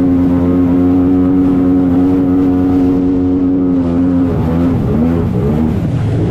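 Jet ski engine running hard at a steady high pitch, the pitch wavering up and down over the last two seconds.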